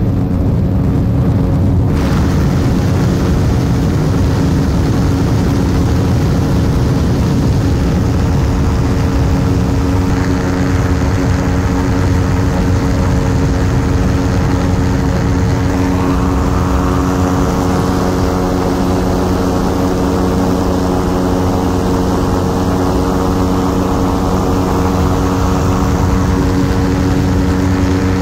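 Ultralight aircraft's engine and propeller running steadily at constant pitch, with no change in power.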